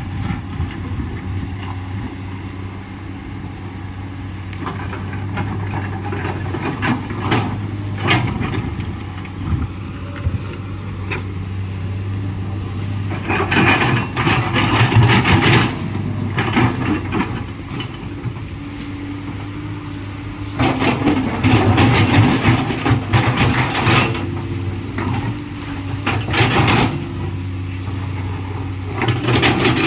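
Komatsu PC210LC hydraulic excavator's diesel engine running steadily, with several louder spells of clattering and scraping as the machine works.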